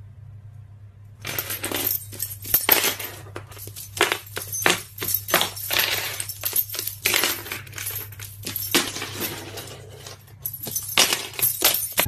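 Bunch of keys jangling and clinking against a wooden floor as a white-bellied caique picks them up and drags them about with its beak: irregular metallic clinks and rattles starting about a second in, over a steady low hum.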